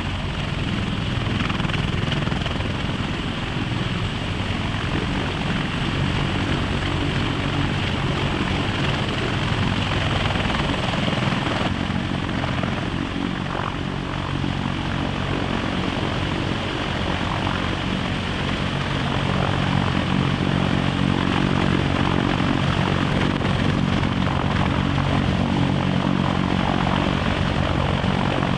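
CH-53 heavy-lift helicopter hovering low with a sling load on its cargo hook, its rotor and turbine engines running steadily and loudly.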